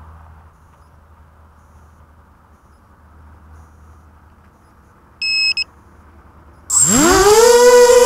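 Two quick high beeps, then about a second and a half later the quadcopter's electric motors spin up with a fast-rising whine that levels off at a steady pitch as it lifts off.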